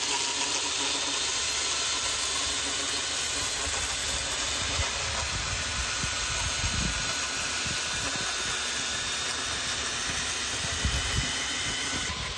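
Powered rotary scissor edger running steadily, its toothed star blade spinning against the lawn edge beside a concrete path and cutting the grass with a steady hiss, with a few low bumps.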